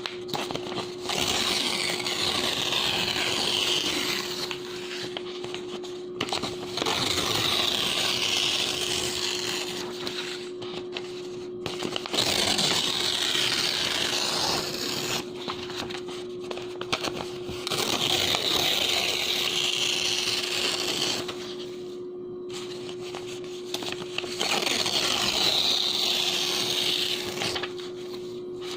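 Sheets of clean bond paper being torn slowly and crisply, five drawn-out rips of about three seconds each with short pauses between them.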